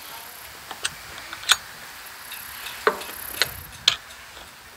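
Hand screwdriver and screws working on a pontoon anchor mount bracket: about six sharp, irregular clicks and clinks of metal tool and screw against the mount.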